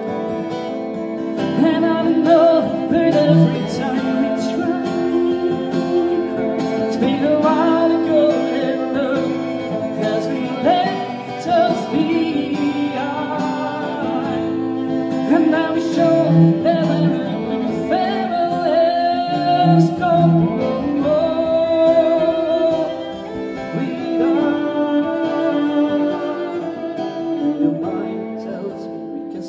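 Acoustic guitar playing a song, with a male voice singing a melody over it.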